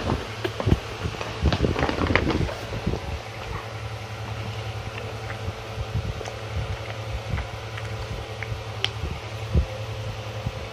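A steady low machine hum, like a fan running, with a rustle of handling and bedding during the first two seconds or so, then only a few small clicks.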